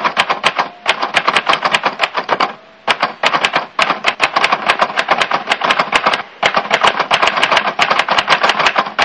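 Rapid typewriter-key clicking sound effect, about six clicks a second, with two short breaks, accompanying a text caption card.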